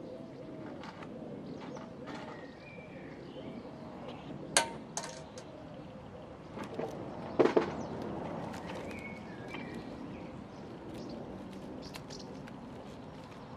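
Outdoor background with birds calling, and a few sharp metallic clicks and clinks as wire mesh is handled against a reed-insulated wall, the loudest about four and a half and seven and a half seconds in.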